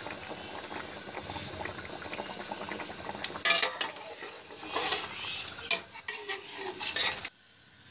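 Beef karahi cooking in an aluminium pot with a steady sizzle. After about three seconds a metal slotted spoon starts scraping and clinking against the pot as the meat and gravy are stirred. The sound cuts off just before the end.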